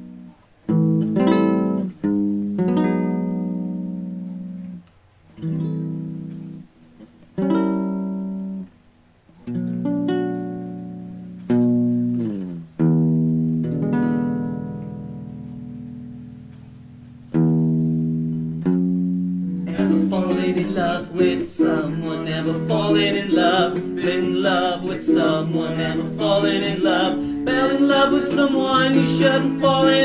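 Acoustic guitar music: single chords plucked and left to ring out one after another. About twenty seconds in, a livelier strummed part begins with voices singing along.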